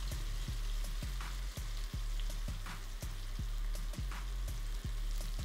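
Flour-dredged thin onion slices deep-frying in a pot of oil at about 375 °F, giving a steady sizzle. Background music with a steady beat plays under it.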